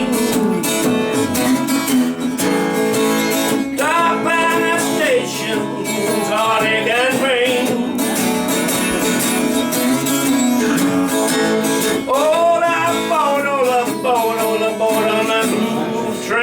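Instrumental break in a live blues song: strummed acoustic guitar with a lead melody that swoops up and down in pitch several times.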